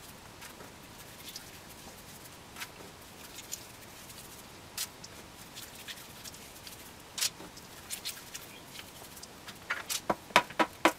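Faint, scattered light taps and clicks of hands working crumbly cookie dough on a countertop and setting dough balls onto a parchment-lined baking tray, with a quicker run of taps about ten seconds in.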